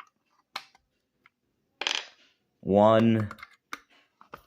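Sharp small clicks and taps of hard plastic as a cheap clamp meter's battery compartment and batteries are worked loose by hand, with a short scrape about two seconds in.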